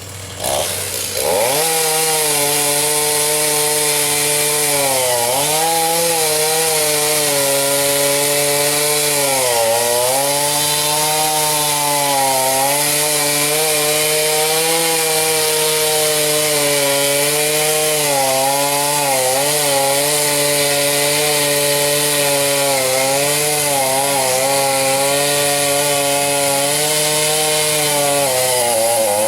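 Gas chainsaw revved to full throttle about a second in and cutting through wood, its pitch dipping several times as the chain bogs under load in the cut. It drops back to idle at the very end.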